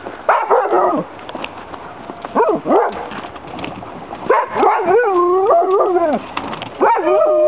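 A dog whining and howling in four drawn-out, wavering cries, the third the longest.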